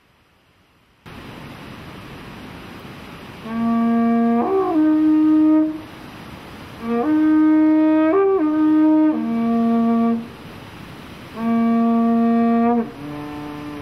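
Handmade carnyx, a Celtic war trumpet, being blown in three long blasts over a steady hiss. The first two step between two or three held notes with a quick jump in pitch, the third holds one low note, and a quieter, lower note sounds near the end.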